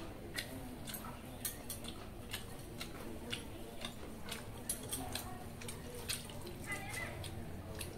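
Close eating sounds of someone eating rice and chicken by hand: chewing and sharp mouth clicks several times a second, with the wet squelch of fingers mixing watery fermented rice (pakhala) about six seconds in.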